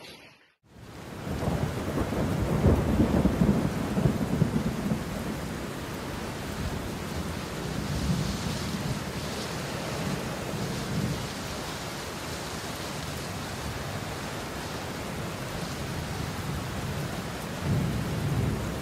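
Steady rain with low rolls of thunder, the loudest a couple of seconds in and another near the end.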